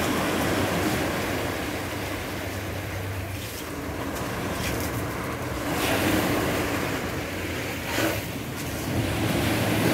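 Small waves breaking and washing up a pebble beach, in several surges, with wind buffeting the microphone.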